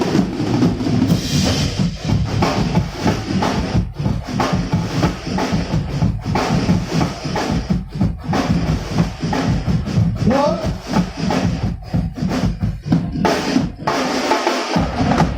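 Loud band music played through a PA system, led by fast, heavy drumming with bass drum and snare. The bass drops out for a moment near the end.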